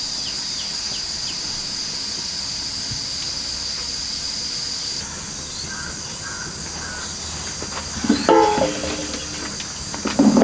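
Steady high-pitched insect drone, like cicadas or crickets, with a few faint bird chirps. The drone drops in level about five seconds in, and a louder pitched call sounds about eight seconds in.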